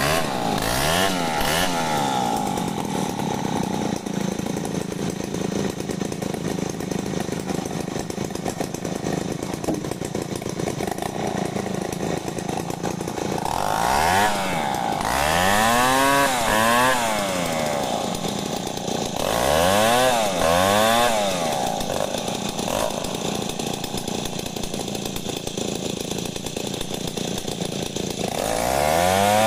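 Large two-stroke chainsaw ripping lengthwise through a log to mill planks, running at high revs under load for long steady stretches. In several spells, at the start, twice past the middle and near the end, its engine speed swings up and down about once a second.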